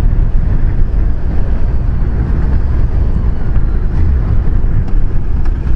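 Steady, deep rumble of wind and road noise from a 2014 Kawasaki Versys 1000 motorcycle under way, with wind buffeting the rider's camera microphone.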